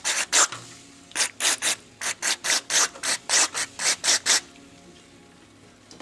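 Aerosol carburetor cleaner squirted in short hissing bursts through its straw into the ports of an idle air control valve, about three squirts a second, stopping a little over four seconds in. The spray is flushing out a valve whose plunger has gummed up.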